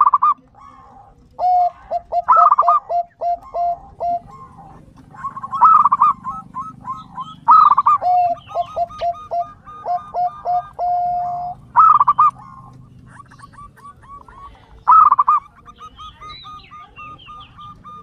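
Doves cooing: about six phrases, each opening with a louder call and running on as a string of short, evenly repeated cooing notes. A lower and a higher voice overlap.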